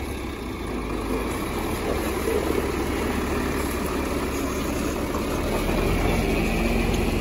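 John Deere diesel tractor engine idling steadily, a little louder near the end.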